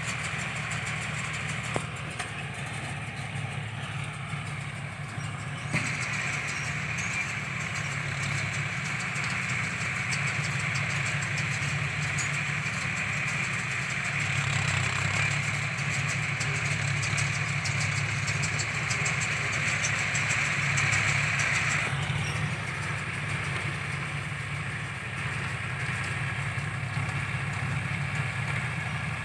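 John Deere tractor engine running steadily while it drives a round baler. A higher-pitched steady noise from the working machinery grows louder about six seconds in and drops back after about twenty-two seconds.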